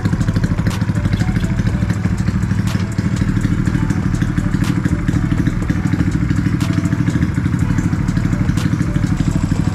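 A Honda Wave underbone's single-cylinder four-stroke engine idling steadily through a stainless H2 aftermarket exhaust, giving an even, rapid pulse.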